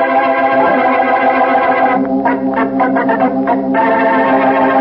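Organ music opening a 1940s radio drama: loud held chords, with a quick run of short notes in the middle before the chord is held again.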